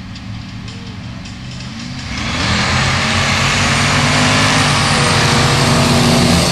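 Two Formula Offroad drag cars idling with a rumble at the start line. About two seconds in, both launch at full throttle and the engine noise jumps to a loud, steady blare that holds to the end.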